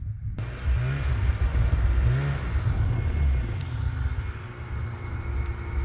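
Snowmobile engine running with an uneven pitch over a heavy, low rumble, starting abruptly about half a second in.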